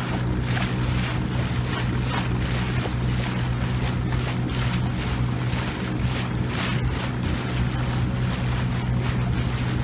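Boat motor running steadily at cruising speed, a constant low hum, with water rushing past the hull and wind gusting on the microphone.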